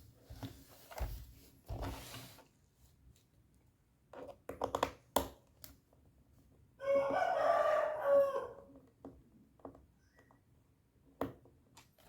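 A rooster crowing once, a call of about two seconds in the middle. Scattered short clicks and knocks come before and after it.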